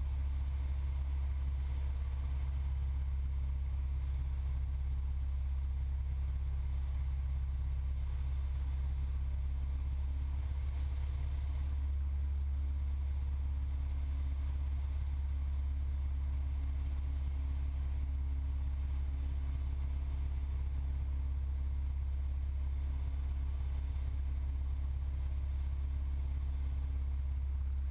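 Steady low drone of a Cessna 172's engine and propeller in flight, heard from the cockpit at an even power setting.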